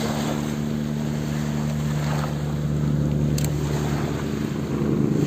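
A steady low engine hum with the wash of surf and wind noise on the microphone.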